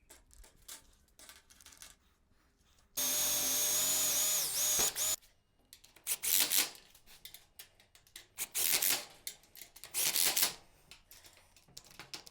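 A power drill runs for about two seconds, its whine dipping briefly as the bit bites, drilling through aluminium for a bolt. Several short rasping noises follow in the second half.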